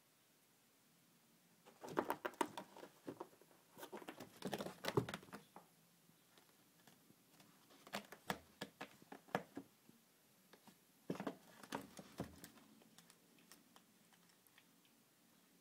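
Soft scratching, clicking and scuffling on stair carpet in three bursts, with a few dull thumps: a cat pouncing, clawing and batting at its small prey.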